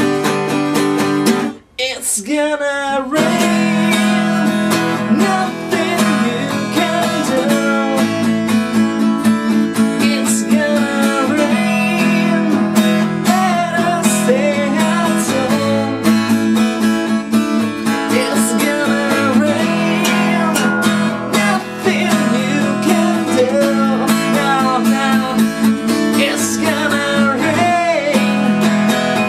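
Acoustic guitar played and strummed, with a man singing over it. There is a short break in the playing about two seconds in.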